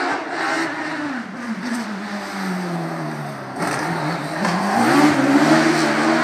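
Single-seater racing car's engine: the note falls steadily as it slows into a hairpin, then about three and a half seconds in it climbs again as the car accelerates out, loudest near the end.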